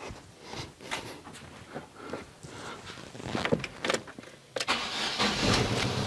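A few clicks and knocks, then about four and a half seconds in a Fiat Palio's four-cylinder engine is started and settles into a steady idle. The misfire is still present: cylinder 3 has no spark, a fault traced to its ignition coil.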